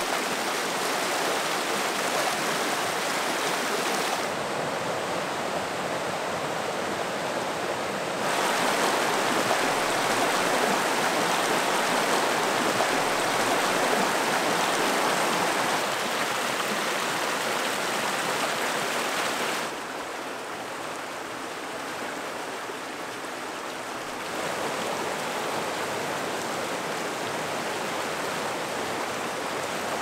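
Steady rush of a canyon river tumbling over rocks and ledges. It shifts abruptly in loudness and tone four times and is loudest through the middle.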